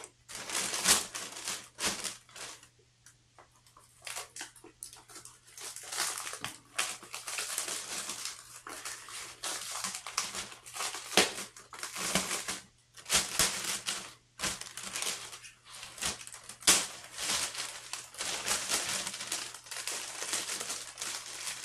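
Thin clear plastic plant sleeve crinkling and rustling as it is handled and pulled open, in irregular bursts with a few short pauses.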